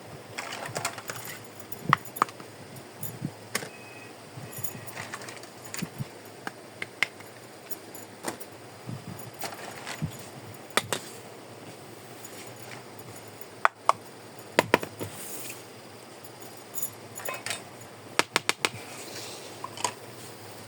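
Small plastic miniature kitchen toy pieces being handled and set down: irregular light clicks and clinks, some in quick runs.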